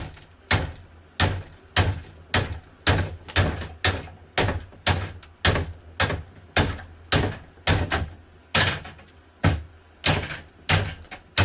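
Repeated hard blows smashing a plastic box fan, about two a second, each a sharp knock with a dull thud under it.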